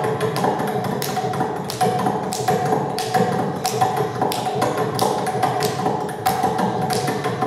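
Mridangam played solo: a quick, dense run of strokes on the double-headed barrel drum, sharp slaps mixed with ringing pitched strokes, over a steady pitched hum.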